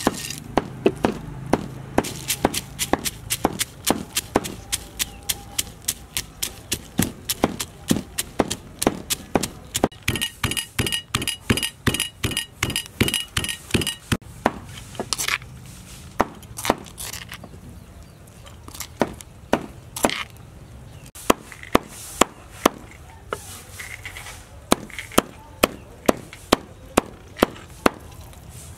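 A stone pestle pounding raw peanuts in a stone mortar, with steady, rapid, even strokes, just after the peanuts rattle into the bowl. Later, a cleaver chops raw meat on a wooden chopping board, with quick, sharp, evenly spaced blows.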